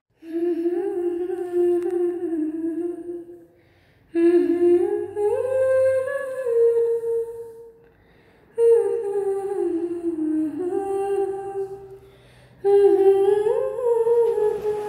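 A voice humming a slow melody in four phrases, with short pauses between them.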